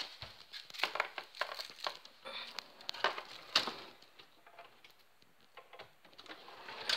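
Crumpling and rustling of an empty drink container and a plastic bin bag as it is thrown into a kitchen rubbish bin under the counter, with scattered clicks and knocks; it goes quiet after about four seconds.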